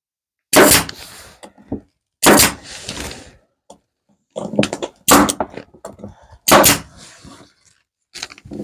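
About half a dozen loud, sharp strikes on pallet-wood boards, a second or two apart, some in quick pairs. Each trails off in a short hiss, typical of a tool fastening the pieces of the cross together.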